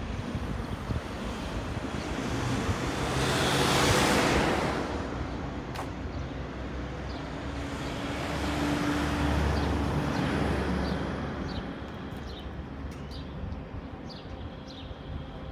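Outdoor street ambience with passing traffic: one vehicle swells past about four seconds in, and a second passes around nine to ten seconds with a low engine hum. Short high chirps come near the end.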